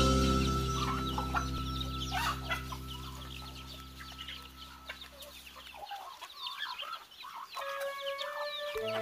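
Chickens clucking, with many short chirping calls, over background music whose held low chord stops about six seconds in.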